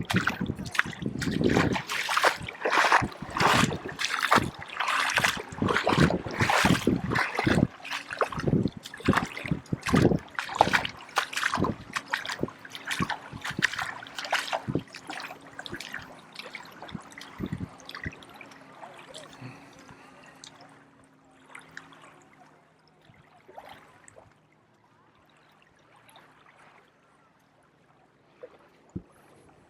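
Footsteps wading through shallow water, splashing about twice a second, then fading out after about fifteen seconds. A faint low hum runs underneath in the middle.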